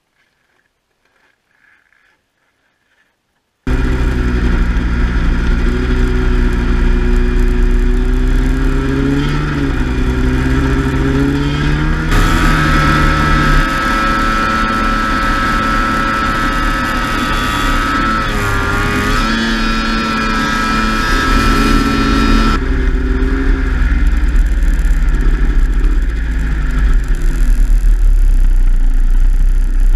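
Near silence for the first few seconds, then a snowmobile engine cuts in suddenly and runs under throttle while riding, its pitch rising and falling as the throttle changes. The sound is brighter and louder through a stretch in the middle.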